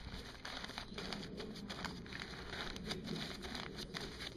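Brown paper bag being crumpled and twisted by hand into tinder, an irregular crackling rustle of many small crinkles.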